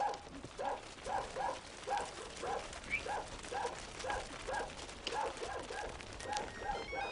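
A dog barking over and over in short, evenly paced barks, about two a second. In the last moment a phone ringtone starts.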